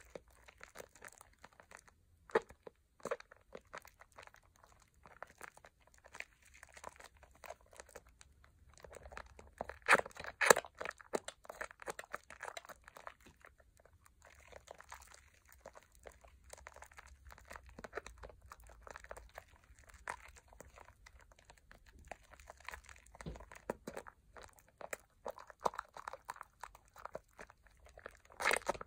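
Hands squeezing and kneading thick Pears soap lather: wet, squishy crackling of the foam in irregular bursts, loudest about ten seconds in.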